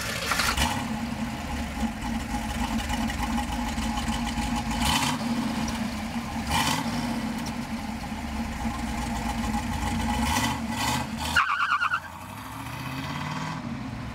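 Chevrolet Camaro SS V8 engine running with the exhaust rising and falling in level as it is revved and pulls away. A short high squeal about eleven seconds in, then the engine sound drops off suddenly.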